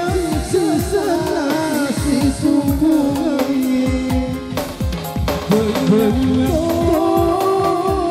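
Music: a wavering sung melody over a fast, steady drum beat, with a short break near the middle.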